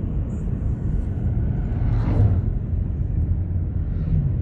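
Steady low vehicle rumble, with a brief swell about two seconds in, like something passing close by.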